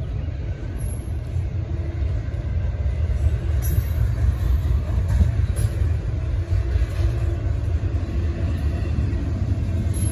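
CSX intermodal freight train rolling past, its double-stack container cars making a steady low rumble.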